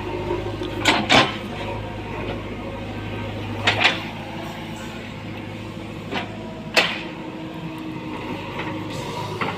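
A backhoe loader's engine running steadily, with several sharp metallic knocks from the machine at uneven intervals.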